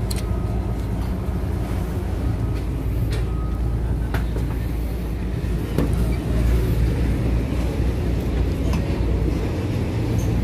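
Ship's diesel engine running steadily with a low rumble, readied for departure, with a few light clicks over it. It gets slightly louder about six seconds in.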